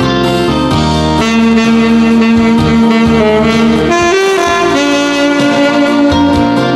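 Alto saxophone playing a slow melody of long held notes over a backing track, with the notes changing about every second or two.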